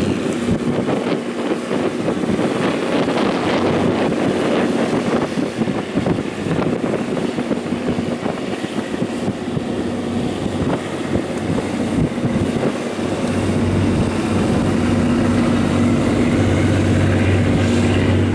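Small tugboat's engine running steadily under load as it tows a speedboat, with churning wash and wind buffeting the microphone; a deeper hum comes in about two-thirds of the way through.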